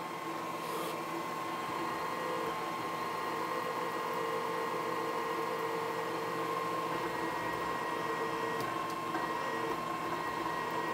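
Milling machine spindle running with a drill bit cutting holes in a metal plate, a steady machine whine throughout.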